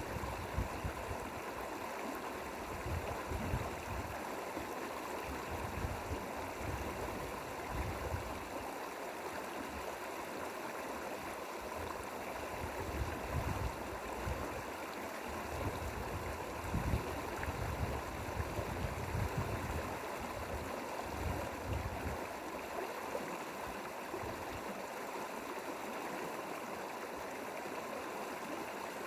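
Mountain valley stream flowing steadily over rocks, an even rush of water. Irregular low rumbles come and go beneath it until about three-quarters of the way through.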